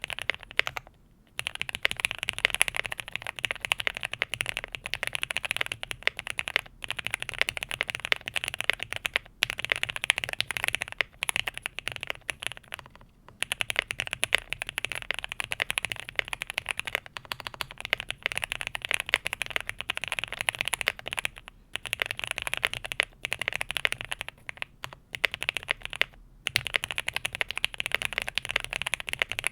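Fast typing on a Qwertykeys QK65 mechanical keyboard with lubed and filmed Gateron Oil King linear switches, an FR4 plate and GMK keycaps. The keystrokes come as a dense, continuous run of clacks, broken by a few brief pauses.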